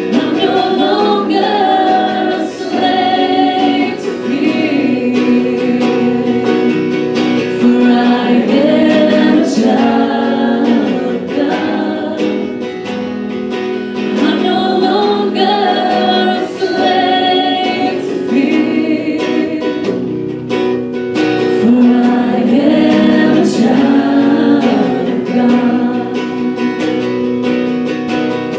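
Live worship song: a woman singing lead into a microphone over a strummed acoustic guitar.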